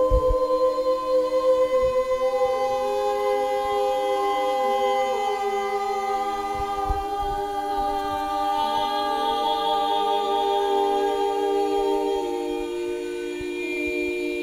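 Several voices toning together without instruments: long held vowel notes at different pitches overlap, each voice moving to a new note every few seconds.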